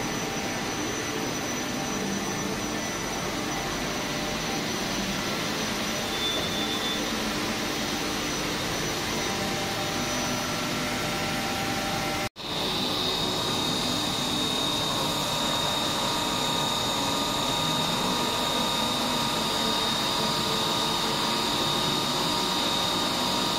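CHETO IXN2000 machining centre running: a steady mechanical hiss and hum with several steady whine tones, and coolant spraying in the work area. It breaks off for a split second about halfway, and after that a high, steady spindle whine stands out more.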